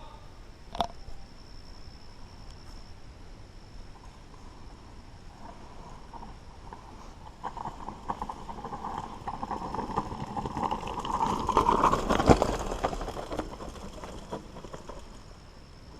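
Mountain bike riding over a dirt singletrack trail, with the bike rattling and knocking over roots and bumps. From about seven seconds in a buzz rises slightly in pitch and grows louder, peaking with a hard knock around twelve seconds, then eases off.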